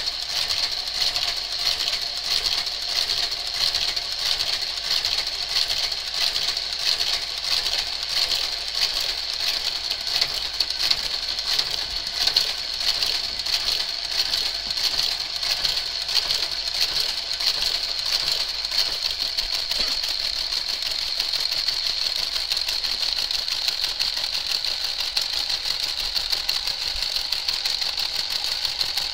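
Motorised Brother garter carriage running along the needle bed of a Brother 930 knitting machine, doing an automatic cast-on needle by needle: a steady high whine with rapid continuous clicking.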